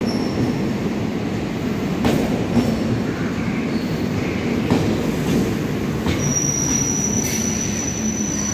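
Chennai MRTS electric multiple-unit train rolling along the platform: a steady rumble of the coaches, with a few sharp clicks of wheels over rail joints. About six seconds in, a thin, high wheel squeal sets in and holds.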